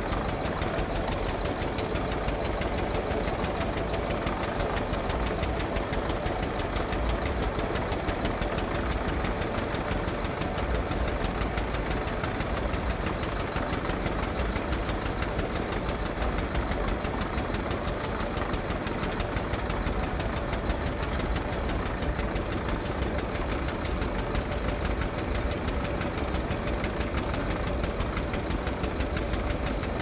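An engine idling steadily with an even, rapid chugging that does not change.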